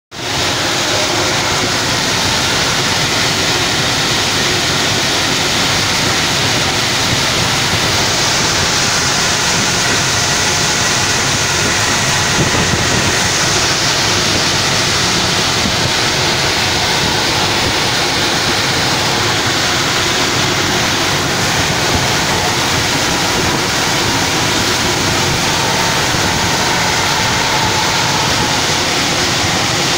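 Stainless-steel tray dryer's air-circulation blower running: a steady, even rushing noise.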